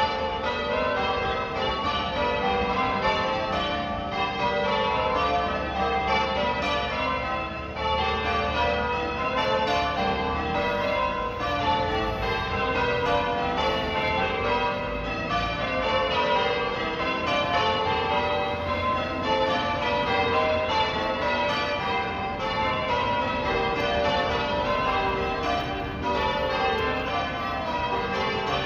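Church bells being change-rung: a steady, unbroken stream of overlapping strikes from several bells of different pitch, each left ringing into the next.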